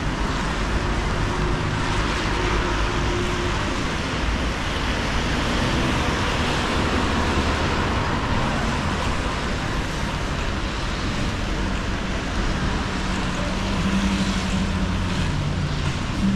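Steady rainy-street traffic: cars passing on a wet road, their tyres hissing on the wet asphalt, with rain falling.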